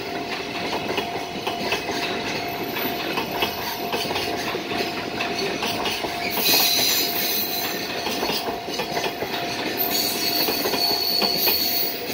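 Container freight train passing close at speed: a steady rumble of steel wheels on the rails, with clicking of the wheels over rail joints and a thin steady ringing tone throughout. Brighter hissing rises for a second or two about halfway through and again near the end.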